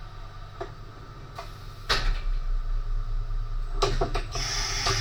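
A steady low machine hum, which gets louder about two seconds in, with a few sharp clicks and knocks and a short hiss near the end.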